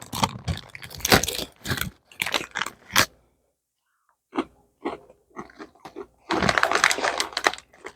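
Potato chips crunched and chewed close to the microphone: a steady run of crisp crunches, a short pause about three seconds in, a few single crunches, then another run of crunching near the end.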